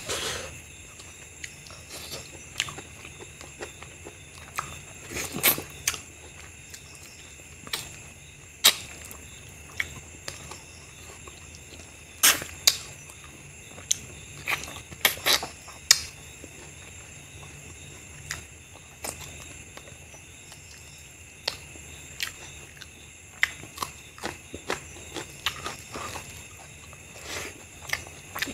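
Close-miked eating by hand: wet mouth clicks, lip smacks and chewing of mutton curry and rice, coming as irregular sharp clicks every second or so. A faint steady high drone runs underneath.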